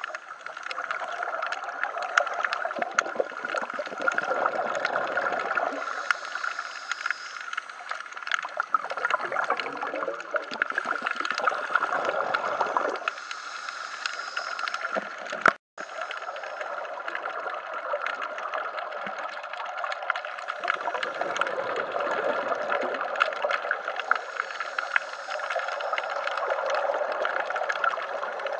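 Underwater sound picked up by a camera in a housing: scuba divers breathing through their regulators, with exhaled bubbles gurgling up in swells every few seconds over a steady hiss. The sound breaks off for an instant near the middle.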